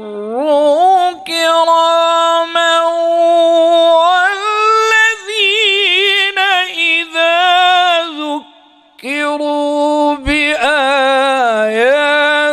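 A male qari reciting the Quran in the melodic tajwid style, stretching the vowels into long held notes with wavering ornaments. He breaks off briefly about eight and a half seconds in, then starts another long phrase.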